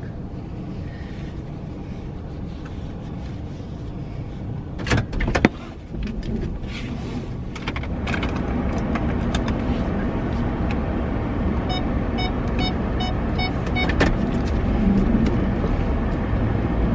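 Truck cab interior with the engine running: a couple of sharp clicks about five seconds in, then the engine and road noise grow louder as the truck pulls away. A run of quick, evenly spaced electronic beeps sounds near the middle, about three or four a second.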